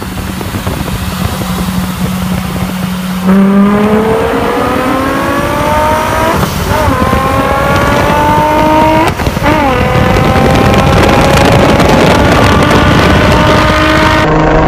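Car engine cruising on a steady note, then going to full throttle about three seconds in: the engine note climbs hard, drops back briefly at two upshifts, about six and a half and nine seconds in, and keeps pulling in the higher gear.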